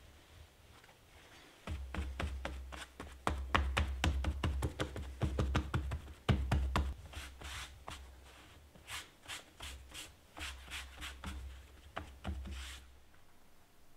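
A run of short scraping and tapping strokes from hand-tool craft work. They come fast and uneven at first, then settle to about three a second, and stop near the end.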